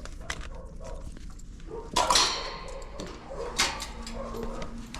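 A dog barks sharply about two seconds in and again about a second and a half later.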